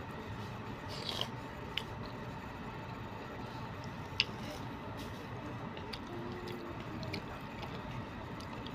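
A person chewing a mouthful of food, with a few light clicks of a plastic fork against a plastic food container, the sharpest about four seconds in, over a steady faint hum.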